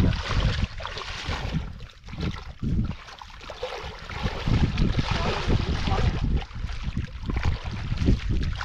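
Footsteps wading through shallow muddy water, sloshing and splashing with each stride, with wind rumbling on the microphone.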